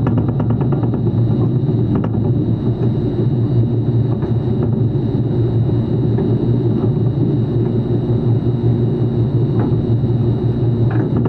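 Steady low machine hum and rumble, unchanging in level, with a few faint clicks in the first second.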